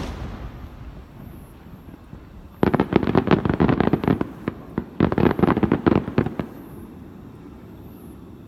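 Fireworks: the echo of a large shell burst fades away, then from about two and a half seconds in comes a rapid string of crackling bangs lasting about four seconds.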